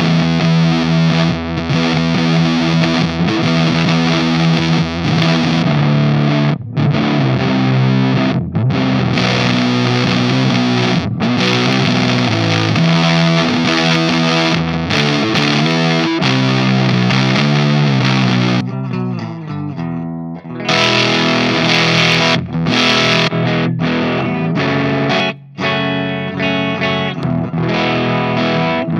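Electric guitar played through a Catalinbread SFT overdrive pedal: heavy, distorted riffing, thick in the low end, with a short thinner, quieter stretch about two-thirds of the way in.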